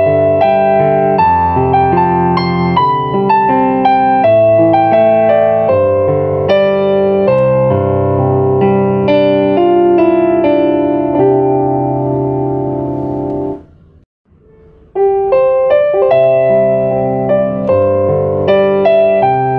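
Background piano music playing a flowing melody over chords. It cuts out for about a second roughly two-thirds of the way through, then starts again.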